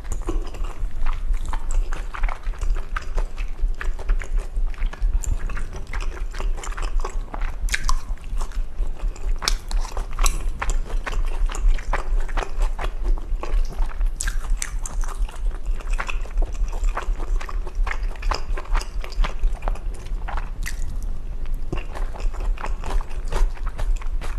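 Close-miked mukbang eating sounds: wet chewing and biting of glass noodles in jajang sauce, full of sharp irregular mouth clicks. Underneath runs a steady low thumping, the eater's own heartbeat picked up loudly by the microphone.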